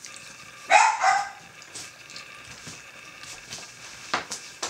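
A single short, high yelp from a small dog about a second in. Two light clicks follow near the end.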